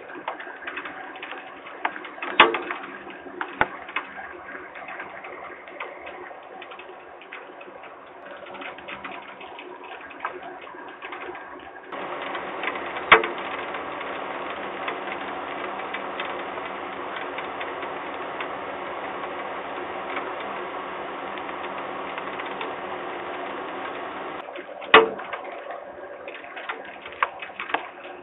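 Heavy rain falling on a wooden nest box, heard through the nest camera's microphone as a crackling hiss full of small drip clicks. About twelve seconds in it becomes a louder, steadier hiss, dropping back to the crackle near the end, with three sharp loud clicks along the way.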